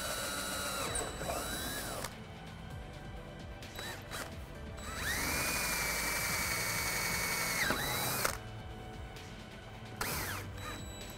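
Cordless drill with a 25/64-inch bit boring riv-nut holes through a car's rear body panel. It runs in spells: a steady whine near the start that winds down, a longer steady run of about three seconds in the middle, and a short burst near the end, each falling in pitch as the trigger is released.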